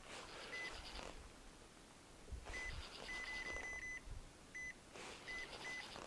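Spinning reel cranked in three short spells, a faint whirring with a thin high whine, as a jig is brought back in steps.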